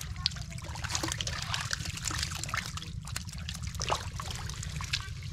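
Wet mud and muddy water sloshing and trickling as a metal bowl is scooped through the mud among wriggling stinging catfish, with many small wet clicks and splashes.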